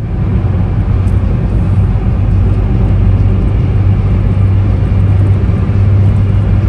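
Steady road noise inside a moving car at highway speed: tyre and engine noise with a constant low hum.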